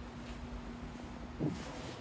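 Quiet garage room tone with a steady low hum, and one short soft thud about one and a half seconds in.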